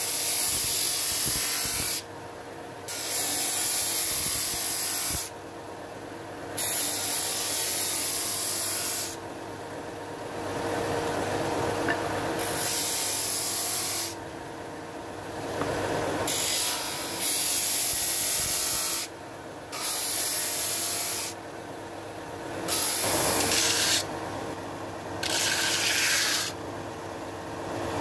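Disc sander running with a wooden panel pressed against the spinning sanding disc again and again: repeated passes of rasping hiss, each one to three seconds long, over the machine's steady motor hum.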